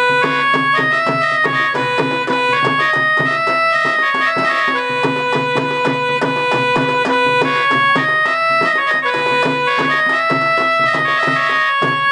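Instrumental interlude of Indian devotional folk music: a harmonium plays a melody of held notes stepping up and down, over a steady hand-drum beat.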